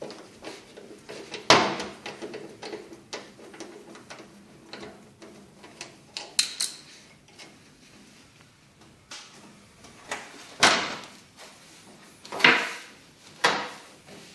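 Clunks and knocks of the dishwasher's sheet-metal side panel and tools being handled as the panel is worked loose: a handful of sharp knocks, the loudest about a second and a half in and three more near the end, with lighter scraping and clicking between.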